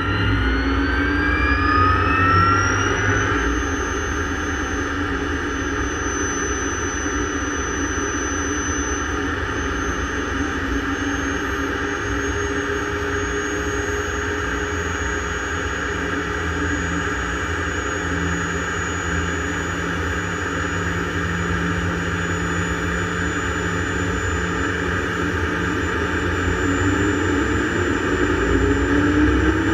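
Light turbine helicopter's engine and rotor heard from the cockpit on the ground: the turbine whine rises for the first few seconds as the engine spools up, then holds at a steady high whine over the rotor noise. Near the end the pitch climbs again as the rotor speeds up.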